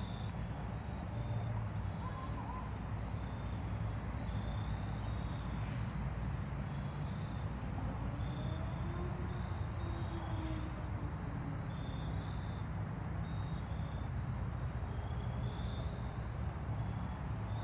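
Norfolk Southern diesel freight locomotive running as the train pulls slowly out, a steady low engine rumble.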